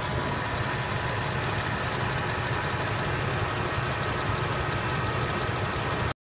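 Mercedes-Benz W163 ML-Class engine idling steadily, heard from underneath beside the power steering pump, running for a leak check on the newly replaced pressure hose. The sound cuts off suddenly near the end.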